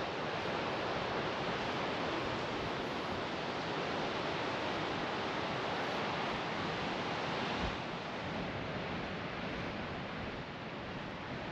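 Ocean surf washing steadily onto the beach. About two-thirds of the way through there is a short low thump, and after it the wash is a little quieter.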